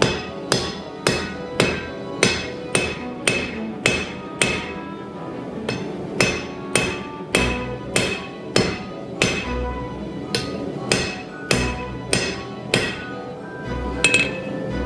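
Hand hammer striking steel on an anvil in a steady forging rhythm, about two blows a second, each with a short metallic ring. There are brief pauses about five seconds in and near the end.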